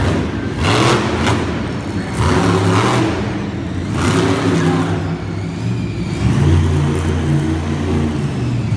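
A monster truck's engine revving hard in surges, its pitch rising and falling as the throttle is blipped. There is a loud crashing burst about a second in as the truck lands a jump.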